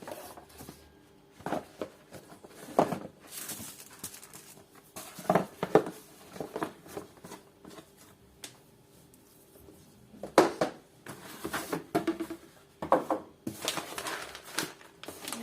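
Packaging being handled: rustling and crinkling with scattered knocks and clicks as items are moved and set down.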